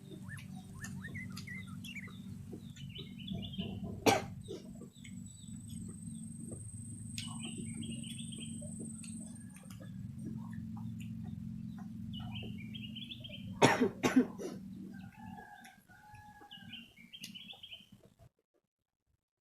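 Birds chirping in short repeated bursts over a steady low hum. A loud sharp sound comes about four seconds in and a short cluster of them at about fourteen seconds, and the sound cuts out shortly before the end.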